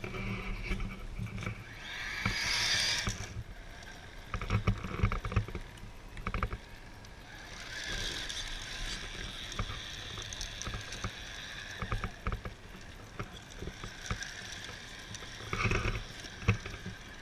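Electric motor and gear whine of a Tamiya CC-01 radio-controlled truck running on tracks, strongest from about eight seconds in, with knocks and clicks as the tracks go over dirt and stones. A brief rushing hiss about two seconds in.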